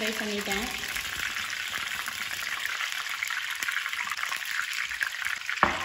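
Battered mushroom pieces deep-frying in hot oil in a kadai, a steady sizzle, with one sharp knock near the end.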